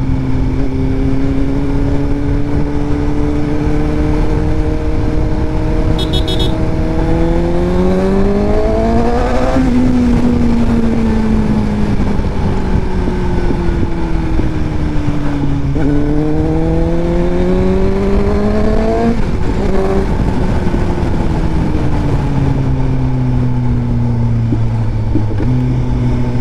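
Suzuki GSX-S750 inline-four engine, heard from the rider's seat on the move. It runs steadily, then its revs climb twice, about a third of the way in and again past halfway, each time falling away gradually afterwards.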